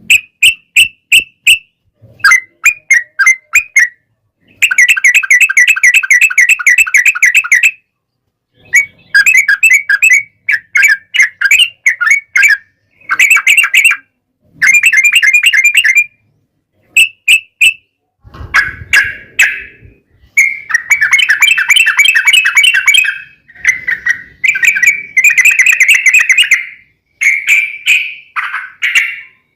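Yellow-vented bulbuls (trucukan) singing in a duel: loud, bubbly, chattering phrases of one to three seconds, one after another with short pauses between them.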